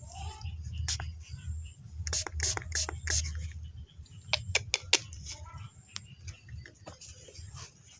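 A series of sharp clicks and taps from something being handled, loudest in a quick cluster about halfway through, over a low steady rumble.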